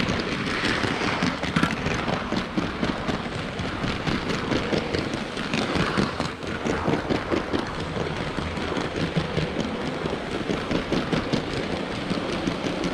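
LEGO City Cargo Train 7939, motorised with Power Functions, running along its plastic track, heard from on board one of its wagons: a steady rattle of plastic wheels and couplings with many small clicks.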